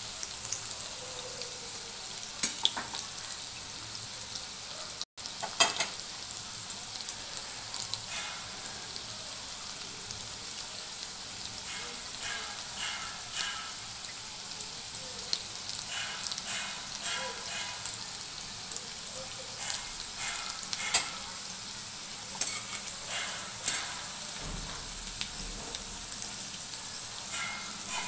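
Shrimp and green-banana kofta balls deep-frying in mustard oil in an aluminium kadai, a steady sizzle. A spatula turning them adds scattered clicks and scrapes against the pan.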